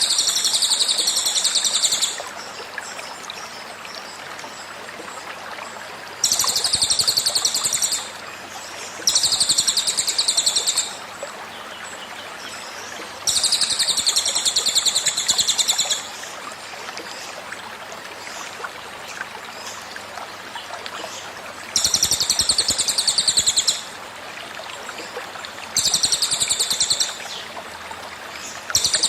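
Cililin bird song in rapid-fire 'tembakan' bursts: seven high, dense trills of about two to three seconds each, a few seconds apart, over the steady trickle of a running stream.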